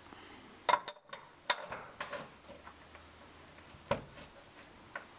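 About half a dozen separate sharp metallic clicks and knocks, irregularly spaced, from bolts and hand tools as the aftermarket rear step bumper's mounting brackets are bolted up. The loudest come in the first second and a half.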